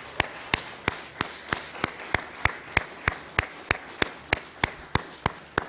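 Audience applauding, with one set of loud, even hand claps about three a second standing out over the crowd.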